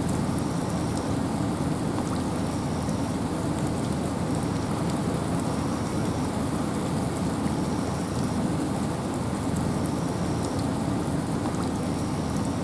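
Steady rain falling in a forest with wind, a dense, even hiss with a deep low rush and fine drop ticks. A faint short high tone repeats about every second and a half.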